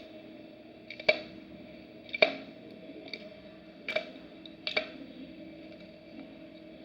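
Light, sharp taps of a hard utensil against a plastic slime tray or container, about five scattered clicks, each with a brief ring.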